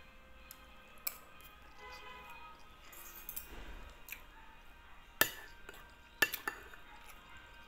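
Metal spoon and fork clinking and scraping on a ceramic plate while eating rice, a handful of sharp clinks with the loudest two about five and six seconds in.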